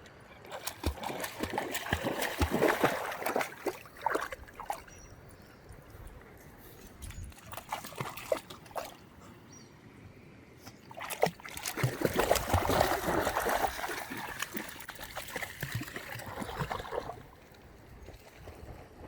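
Splashing and sloshing in shallow river water, in two spells of several seconds each, over a quieter steady trickle of the river.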